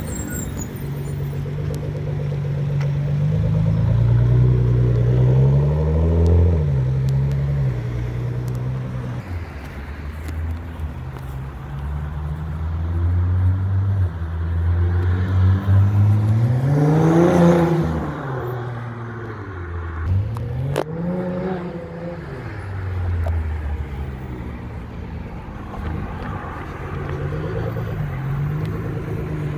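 Nissan GT-R's twin-turbo V6 revving and accelerating, its pitch climbing and falling in several surges, the loudest about halfway through, with a steady engine drone in between.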